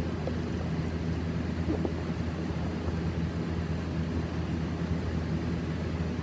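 Steady low droning hum with an even rumble, unchanging throughout.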